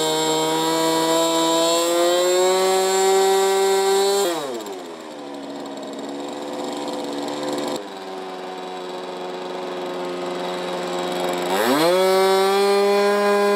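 Model aircraft nitro glow engine running at full throttle with a high, slowly climbing pitch, throttled back to a lower idle about four seconds in, then opened up again near the end.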